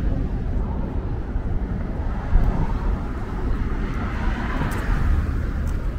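Montreal metro train running on its rubber tyres, a steady low rumble that swells briefly about four seconds in.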